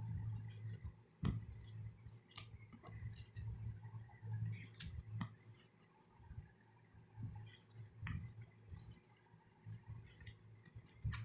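Yu-Gi-Oh! trading cards being handled: short rustles and light clicks as cards slide over one another, repeated every second or so.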